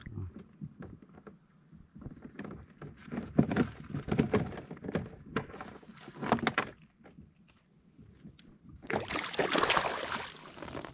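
Knocks and clatter of gear against a fishing kayak, many sharp strokes in a row, then a short burst of rushing noise about nine seconds in.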